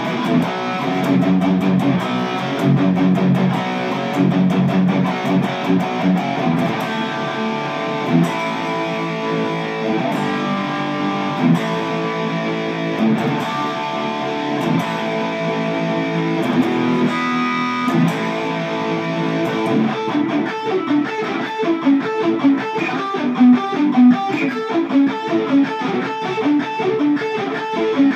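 Les Paul electric guitar played through an amplifier, improvised riffs mixing held notes and melodic runs. About two-thirds of the way through the playing turns to a faster, choppier picked rhythm.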